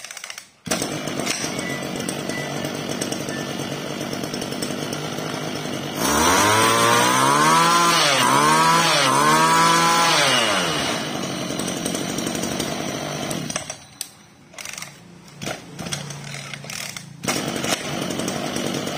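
A 26cc two-stroke brush cutter engine (34 mm bore) starts up less than a second in and idles. It is revved up and down several times in the middle, falls back to idle, drops away briefly and runs again near the end.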